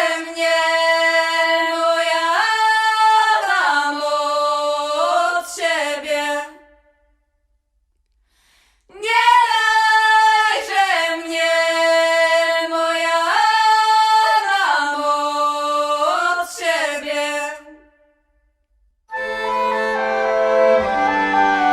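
A woman's voice singing long held notes unaccompanied, in two phrases with short pauses between them. Instrumental music comes in near the end.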